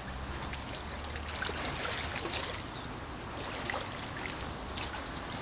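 Small waves lapping and trickling against the hulls of moored wooden boats, with many little irregular splashes and drips.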